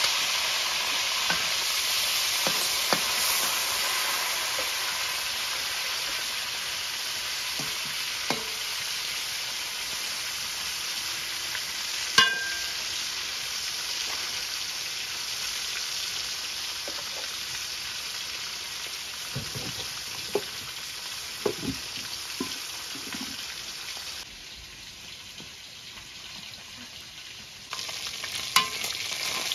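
Food sizzling as it fries in a pan, a steady hiss with occasional sharp clinks and scrapes of a utensil against the pan, the loudest about twelve seconds in. The sizzle drops quieter for a few seconds near the end, then comes back.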